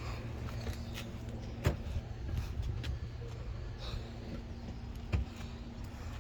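Clunks and knocks of bags and gear being moved about inside a car, over a steady low rumble. Two sharper knocks stand out, one a little under two seconds in and one about five seconds in.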